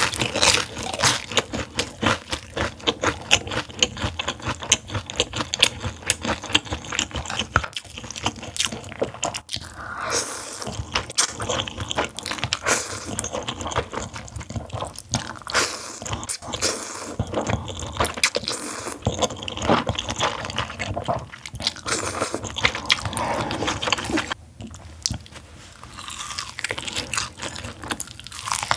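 Close-miked eating sounds: chewing and slurping of jjambbong noodles with wet mouth noises, and near the end a bite into crispy sauce-coated fried chicken with crunching.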